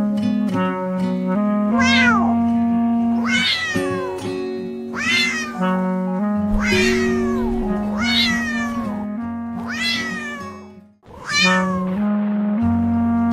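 A cat meowing over and over, a falling meow about every one and a half seconds, over background music with held notes.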